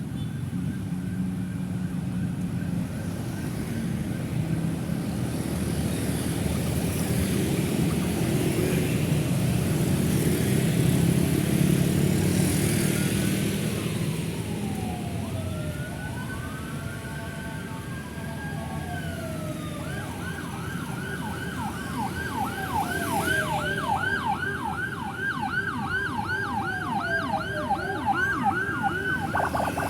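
Busy city road traffic: engines and tyres rumbling past. About halfway through, an emergency vehicle siren starts, rising and falling slowly; from about two-thirds in, a fast yelping siren sounds over the slow wail.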